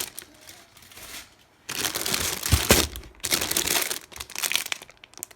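Packaging crinkling and rustling as items are unpacked by hand, in three bursts starting about two seconds in.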